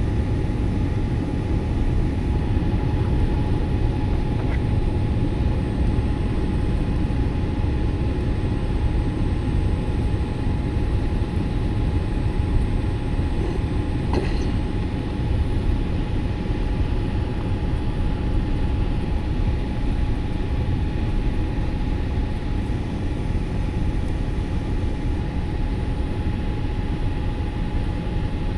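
Steady cabin noise of a jet airliner: a low rumble of engines and airflow with a thin steady whine over it, heard from a window seat on the approach to landing.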